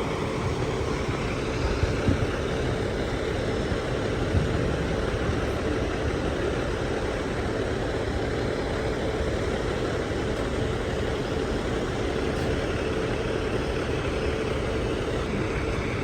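Fire truck's diesel engine idling steadily: a low rumble with a steady hum over it.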